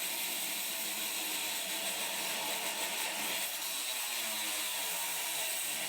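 Power tool cutting through a tin roofing sheet, a steady hissing cutting noise without pause.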